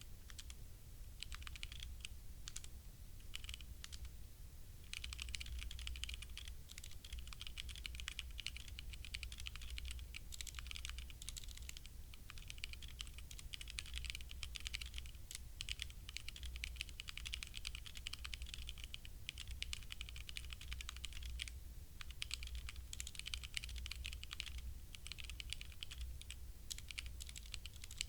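Typing on a HyperX Alloy Origins Core mechanical keyboard with linear HyperX Red switches: a fast, irregular stream of key clicks, sparser for the first few seconds, with a brief pause about three-quarters of the way through. A steady low hum lies underneath.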